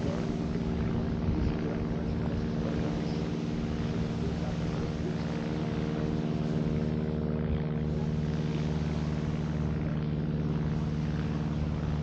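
A motor engine running with a low, steady drone at an unchanging pitch.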